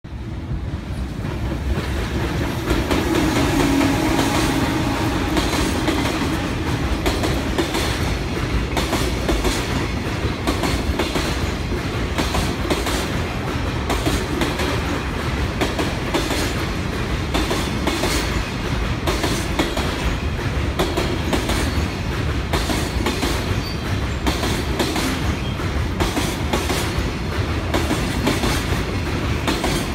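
Freight train rolling past, its wagons' wheels clacking over the rail joints in a long steady run of clicks, with a low hum strongest a few seconds in.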